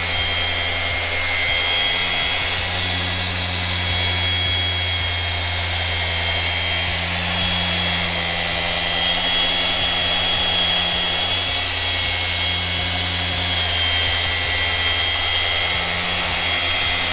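Cordless Flex PXE mini polisher with a small 50 mm pad running steadily, a whine with a slight wavering as it is pressed onto a gloss-black alloy wheel spoke. It is polishing out factory sanding scratches in the wheel's finish.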